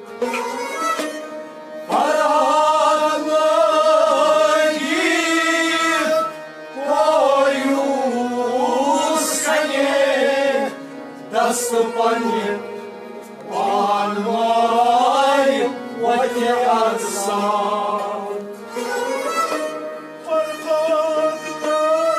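A man sings a Sufi kalam in long bending phrases with short breaks between them, accompanied by a harmonium holding steady chords and a bowed sarangi.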